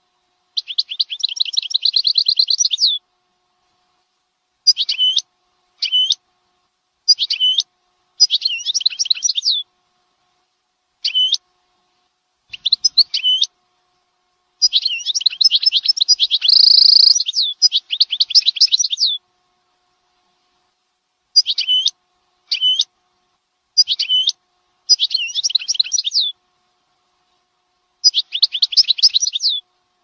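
Small songbird chirping in short phrases of quick high notes and fast trills. The phrases run from a fraction of a second to a couple of seconds, with pauses between them. About halfway through comes a louder, harsher burst.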